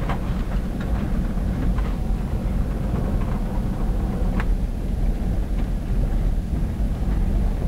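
Land Rover Defender driving over a rutted dirt track, heard from inside the cab: a steady low engine drone with scattered knocks and rattles, one sharper knock about halfway through.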